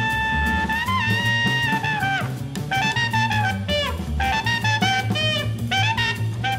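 Jazz trio playing: a tenor saxophone plays a melody over bass and drum kit. The saxophone holds long notes for about the first two seconds, then moves into a run of quicker, shorter notes while the cymbals keep time.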